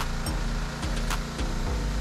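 Pressure washer running steadily, an engine-like hum under the hiss of the spray, with a few light clicks about a second in.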